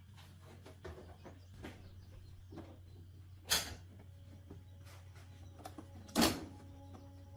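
Scattered knocks and clatters of objects being handled, two louder than the rest about three and a half and six seconds in, over a steady low hum.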